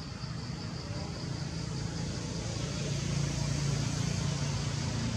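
Outdoor ambience dominated by a low, steady motor-vehicle hum that grows louder a few seconds in. Above it, a high insect trill pulses several times a second and fades out early.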